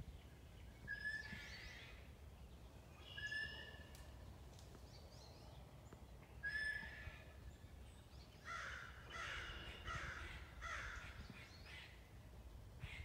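American crows cawing: single harsh caws a few seconds apart, then a quick run of several caws in a row near the end.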